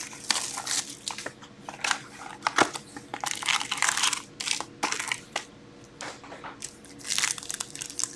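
Hands opening a 2021-22 Upper Deck SPx hockey card box and handling its pack and cards: irregular crinkling, rustling and scraping of cardboard and wrapper, with small clicks.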